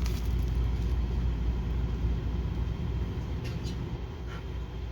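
A steady low rumble, with two faint brief rustles near the end.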